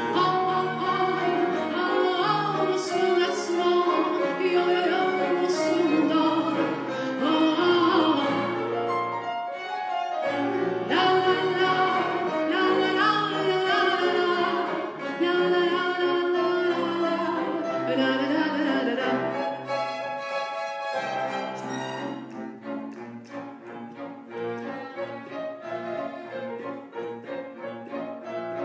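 A woman singing into a microphone, accompanied by piano, two violins, viola and cello. The music breaks briefly about ten and twenty seconds in, and the last third is softer.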